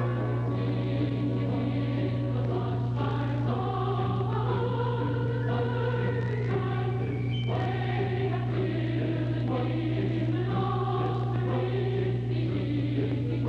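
Background choral music: a choir singing slow, held notes, with a steady low hum underneath.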